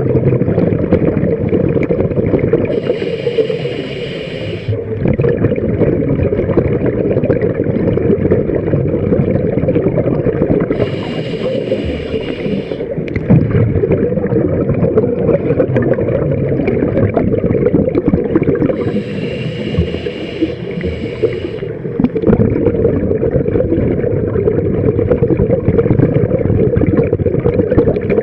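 Scuba diver breathing through a regulator underwater: a dense crackling rush of exhaled bubbles, broken three times, about eight seconds apart, by a hissing inhale lasting about two seconds.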